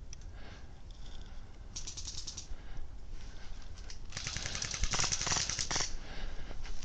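Airsoft electric rifle firing on full auto: a short rattling burst about two seconds in, then a longer, louder burst of nearly two seconds.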